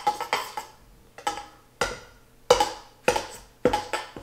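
A plastic bowl knocked again and again against a stainless steel mixing bowl to tap its contents out, about one knock every half second at an uneven pace. Each knock sets the steel bowl ringing briefly.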